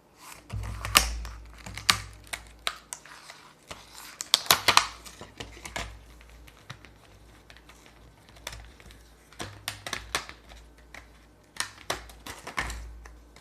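Hands handling small packaging and a paper insert: irregular clicks, taps and rustles, with a few low handling bumps.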